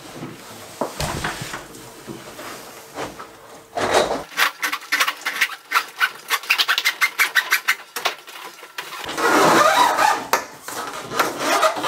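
Washing machine hoses being pulled through a PVC conduit pipe, rubbing and scraping against the pipe. Midway comes a run of rapid ticks as the ribbed hose drags through, then a denser scraping rub near the end.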